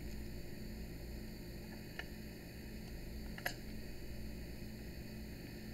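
Two small faint clicks, about two seconds in and more sharply about three and a half seconds in, from a precision screwdriver working a screw on a camera lens barrel, over a steady low hum and hiss.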